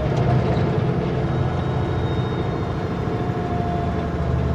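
Kenworth W900L semi truck's diesel engine running steadily under way, heard from inside the cab as a continuous low drone.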